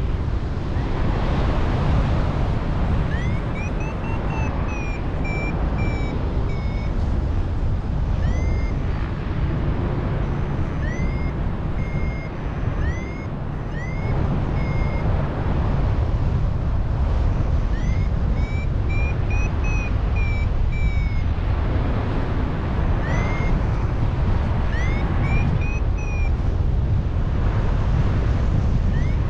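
Paragliding variometer beeping climb tones, short beeps and rising chirps that come in irregular groups as the glider finds lift, over a loud steady rush of strong wind on the microphone.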